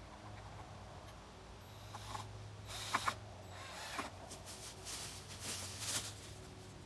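Handling noises: a few short clicks and knocks, two sharp ones close together about three seconds in, over a low steady hum.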